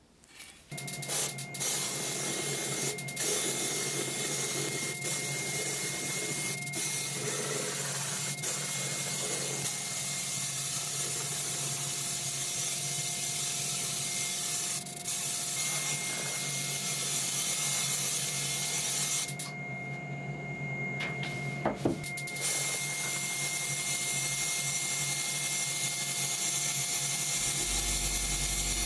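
Powder coating booth and electrostatic spray gun running: a steady rushing air noise with a high whine and a lower hum. The hiss drops out briefly about two-thirds of the way through, and a deeper hum joins near the end.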